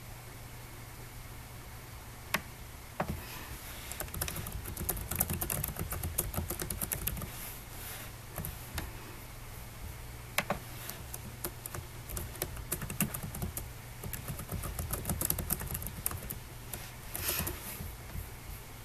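Typing on a computer keyboard: two runs of rapid key clicks, with a few single clicks before and between them.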